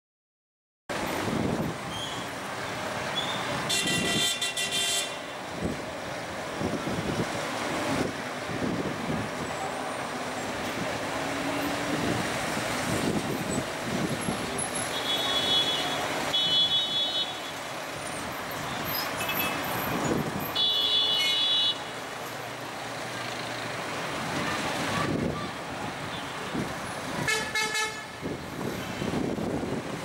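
City street traffic: minibus and car engines running past, with a steady traffic din that starts about a second in. Horns toot several times, some in quick pairs, with high, bright tones.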